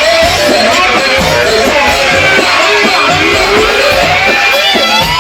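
Loud live music: a wavering lead melody over a fast, dense drum beat, with a long rising pitch glide starting near the end.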